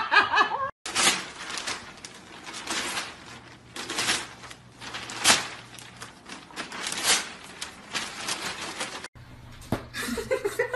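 Newspaper rustling and crinkling in a series of short, sharp crackles as a golden retriever grabs and chews at it.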